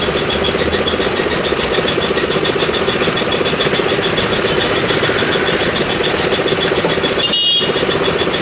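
Concrete mixer's engine running steadily with a fast, even pulse, cutting out briefly near the end.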